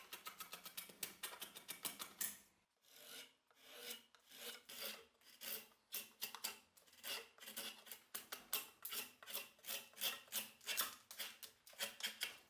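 Freshly restored Peugeot Frères carpenter's drawknife shaving a wooden blank. It makes a quick run of short strokes, pauses briefly about two and a half seconds in, then carries on with slower strokes, about two or three a second, until it stops near the end.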